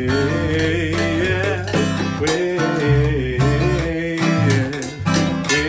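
Music: a song with plucked guitar accompaniment, a voice holding long wavering notes between sung lines.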